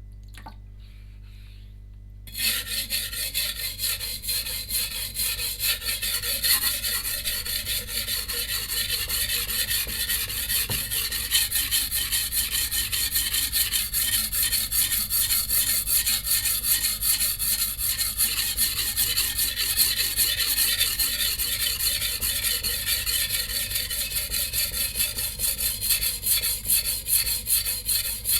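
Steel blade of a Shun VG10 Chinese cleaver scraping back and forth on a whetstone in quick, continuous strokes, which start about two seconds in after a low steady hum.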